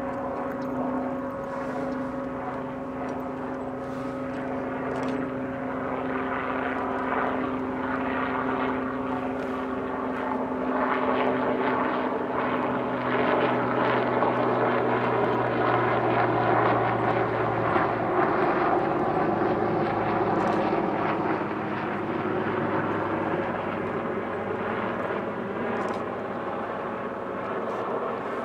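Jet airliner engines: a steady whine with a low hum, swelling to a louder rumble about halfway through and then easing.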